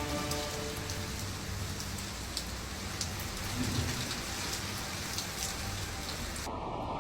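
Heavy rain pouring down steadily, with scattered sharp taps of drops striking a hard surface.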